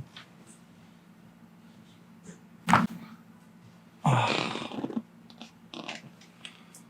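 Chiropractic neck adjustment: one sharp joint crack about two and a half seconds in, followed about a second and a half later by the patient's loud breathy exhale lasting about a second.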